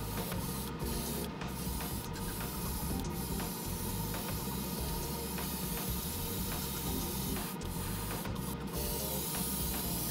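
Airbrush spraying paint onto small figure parts: a steady hiss, broken by a few short gaps where the spray stops for a moment. A low steady hum runs beneath it.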